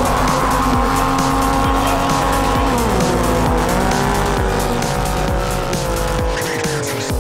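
Racing Sea-Doo RXP-X jet ski engines at full throttle in a drag race. The engine note holds high, dips briefly about three seconds in, then slowly falls toward the end.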